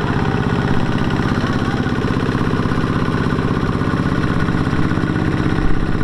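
Kubota ZT155 walking tractor's single-cylinder diesel engine running steadily with a fast, even beat of firing strokes, under load as it hauls a rice-laden trailer stuck in mud.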